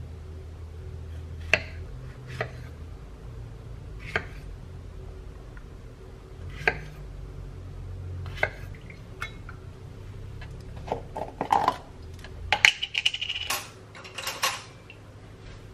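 Knife slicing strawberries on a wooden cutting board, each cut ending in a single sharp tap on the board every second or two. Near the end comes a quick run of clatter and clinks, with a brief ring, as the knife is set down and the pieces go into a glass cup.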